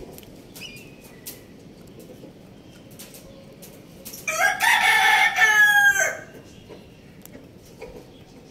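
A rooster crows once, a loud call of a little under two seconds about halfway through. Around it, faint sharp taps of hens' beaks pecking rice from a clay bowl.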